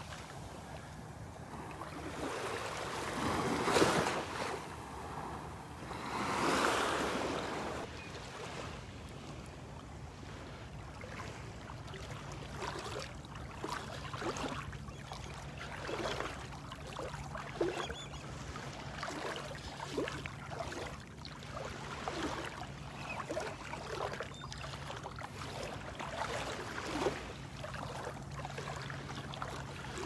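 Small Gulf of Mexico waves washing and lapping at the water's edge, with irregular splashes of steps wading through shallow water. A faint steady low drone comes in about twelve seconds in.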